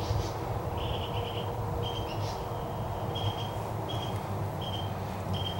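A bird repeating a short, high chirp at an even pitch, about every 0.7 seconds, over a steady low hum.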